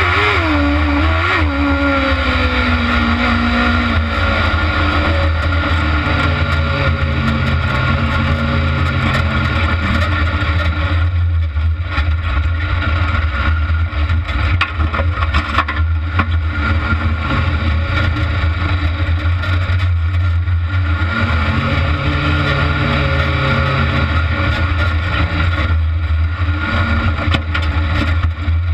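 Kart cross buggy's engine heard from its onboard camera while racing, running loudly and revving up and down, easing off briefly several times.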